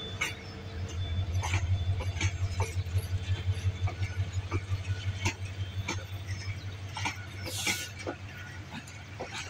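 Passenger coaches of an intercity train rolling past: a low rumble with a steady beat of wheels clattering over rail joints, scattered sharp clicks, and a brief high-pitched noise about eight seconds in.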